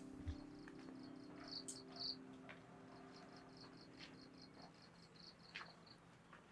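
Faint cricket chirping: a steady run of short high pulses, about six a second, that stops about six seconds in. The held chord of the preceding music fades out under it in the first few seconds.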